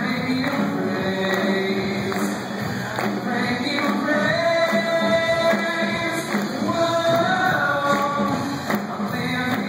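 Live praise band playing a worship song: singers over electric guitar, keyboards and a steady drum beat, with the echo of a large hall.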